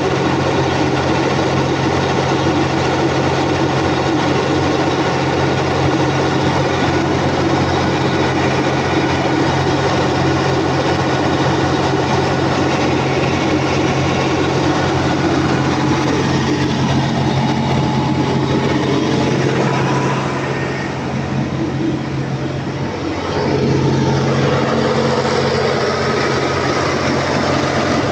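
Freshly top-overhauled Volvo Penta TAD1341GE inline-six diesel genset engine running steadily, loud and even. The sound drops a little for a couple of seconds about twenty seconds in, then comes back.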